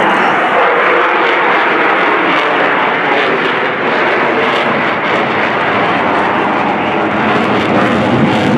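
F-35C Lightning II's single afterburning turbofan running loud and steady as the jet flies a slow, gear-down pass at high power, a simulated carrier wave-off. Near the end the deeper rumble grows as the afterburner lights.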